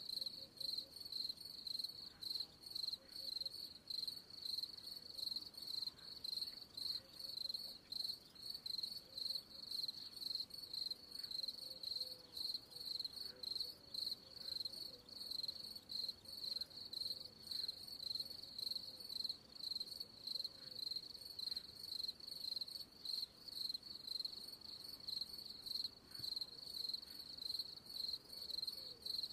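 Cricket chirping: a high, thin chirp repeated in a steady, regular rhythm, a little over once a second.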